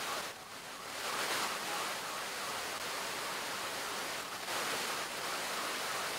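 Floodwater pouring down into an underground car park: a steady rushing of water that swells up over the first second.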